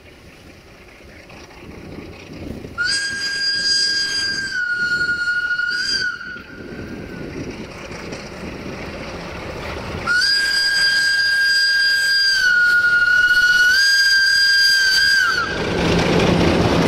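Horn of a 060-DA diesel-electric locomotive sounding two long, high-pitched blasts as the train approaches, each dropping briefly to a lower pitch and stepping back up. Near the end the locomotive's diesel engine comes in loudly as it draws alongside.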